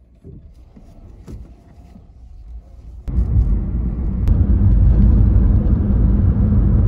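Low, steady cabin rumble of a 2011 Toyota Prius on the road, heard from inside the car: faint at first, then suddenly much louder about three seconds in.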